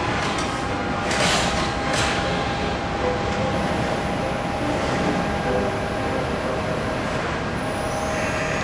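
ACER EMC-2240A vertical machining center running, a steady tone over constant mechanical noise, with a few brief hissing surges in the first two seconds.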